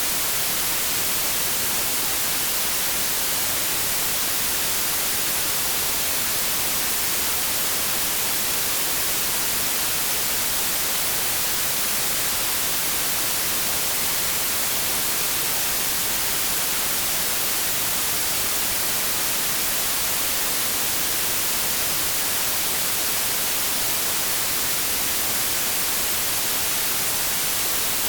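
Steady, unbroken artificial white noise, bright and hissy with little bass.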